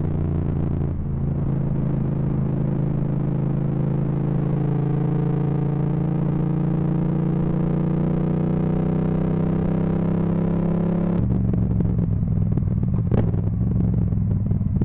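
Yamaha MT-07's parallel-twin engine running through a full Akrapovic titanium exhaust under way, its note slowly rising as it pulls. About eleven seconds in the pitch drops abruptly. The recording is distorted by an overloaded microphone.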